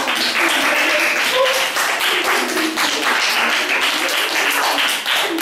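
Children clapping and applauding, with rapid overlapping claps and excited voices mixed in.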